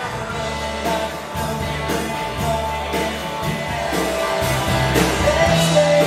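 Band music with a singer over guitar and drums, with a steady beat.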